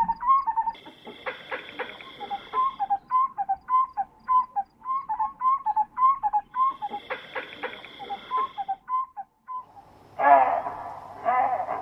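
Bushveld ambience: a bird repeats short whistled notes, two or three a second, while insects buzz in two stretches. About ten seconds in, loud harsh animal calls with a wavering pitch come over the top.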